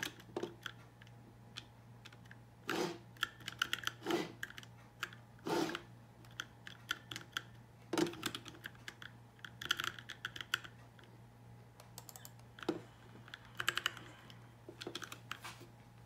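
Typing on a Dierya 60% mechanical keyboard with Outemu Brown switches: irregular runs of quick key clacks, broken by several louder single keystrokes, over a faint low hum.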